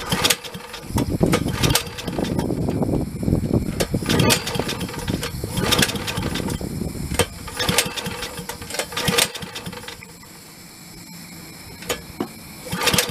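212cc single-cylinder small engine fed by a wood gasifier being pull-started over and over: each yank of the cord brings a short burst of cranking and sputtering, running roughly for a few seconds near the start, but it does not keep going.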